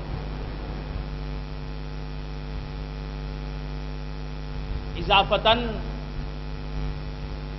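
Steady electrical mains hum, a low buzz made of several constant tones, broken by one short spoken word about five seconds in.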